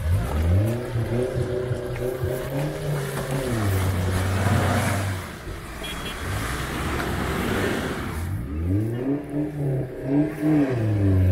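Kia Sorento SUV's engine revving under load as it pulls through a muddy ditch. The revs rise near the start and again about three quarters of the way through, dropping to a steady low note in between.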